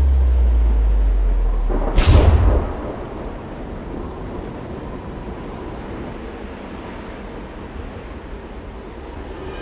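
Cinematic sound-design effects: a deep, steady bass drone that gives way to a loud impact hit with a sweep about two seconds in, followed by a long, slowly fading noisy rumble.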